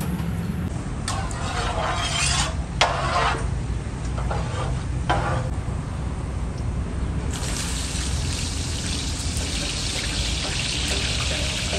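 Sliced onions going into hot melted ghee in a giant cooking pot: a steady frying sizzle starts suddenly about seven seconds in. Before that there are a few brief hisses over a low steady rumble.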